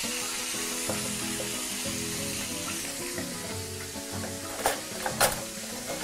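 Pieces of salt cod frying in oil in a pan, giving a steady sizzle, with two sharp clicks about a second and a half before the end.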